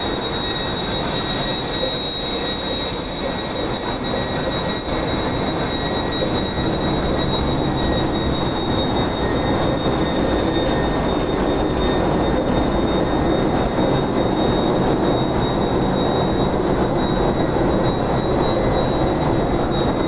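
Loud, steady din of a bulk carrier's engine room: running machinery making a dense, unbroken noise with several steady high whines on top.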